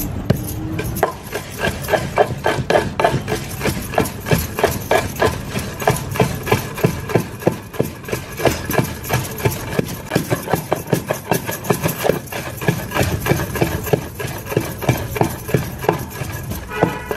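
Steady run of strikes from food being prepared by hand, about three a second, starting about a second in, over a low steady hum.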